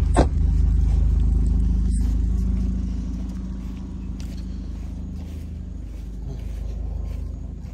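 Car engine and road rumble heard from inside a moving car, with a brief sharp falling sweep just after the start; the rumble grows quieter about three seconds in.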